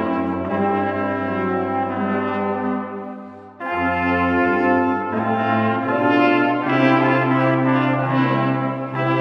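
Church brass ensemble playing sustained chords in a slow, hymn-like passage; the sound fades briefly between phrases a little over three seconds in, then comes back in full.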